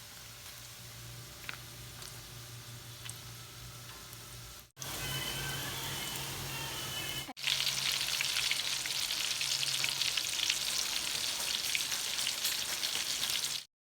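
Food deep-frying in hot oil, sizzling and crackling. It comes in three short cuts, each louder than the one before, and the last is the busiest.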